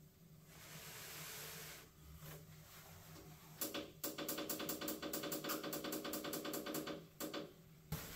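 Grainfather Conical Fermenter's temperature controller giving a rapid, even run of short beeps, about five a second, for about four seconds as its button is held to set the temperature.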